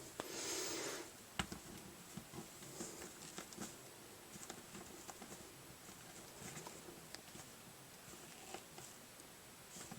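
Faint handling noises of plastic action figures being set upright on a surface: a brief rustle at the start, a sharp click about a second and a half in, then scattered small taps and clicks.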